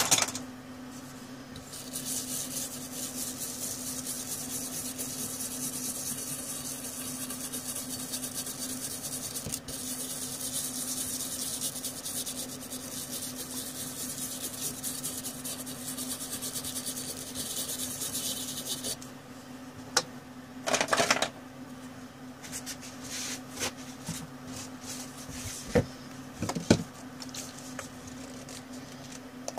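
A small brush scrubbing the alcohol-wetted pad side of a BGA graphics chip, a steady scratchy rasp that starts about two seconds in and stops suddenly about two-thirds of the way through. Afterwards a short burst of rubbing and a few light clicks of handling, over a steady low hum.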